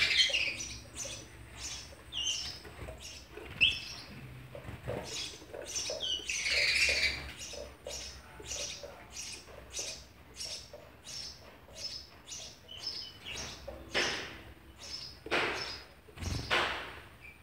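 House sparrows chirping over and over, about two chirps a second, at a nest box while the adults feed the nestlings. Thicker bursts of calls come near the start and about six seconds in, and there is a flurry of wingbeats near the end as a bird flies off the box.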